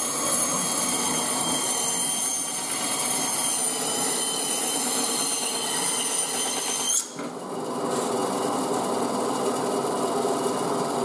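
Ryobi benchtop band saw running and cutting lengthwise through a rack of ribs, with a steady high whine over a rasping cut. About seven seconds in the sound changes abruptly: the high whine stops and the saw runs on with a smoother, steady sound as the meat comes off the blade.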